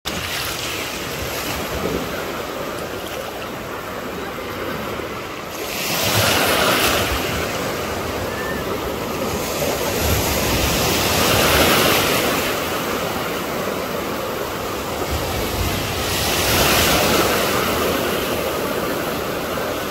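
Small Mediterranean waves breaking and washing up a sandy beach, the surf swelling in a louder surge about every five seconds, three times.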